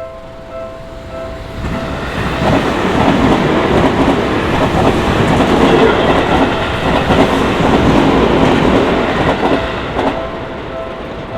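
A Seibu Shinjuku Line train passing over a level crossing. The train's noise builds about two seconds in, stays loud for several seconds, and dies down around ten seconds. It drowns out the crossing's repeating electronic warning bell, which is heard ringing at the start and again near the end.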